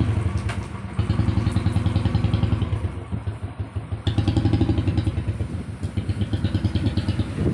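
Motorcycle engine idling steadily with a fast, even pulse.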